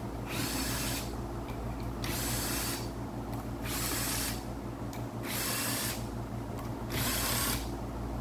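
Cordless power driver spinning out 10 mm rocker arm shaft bolts from a Gen 3 Hemi cylinder head, in five short runs of under a second each, over a steady low hum.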